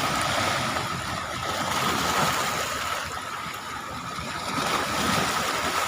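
Seawater of a strong high tide surging and washing against the shore in slow swells of noise. A thin steady high tone runs under it.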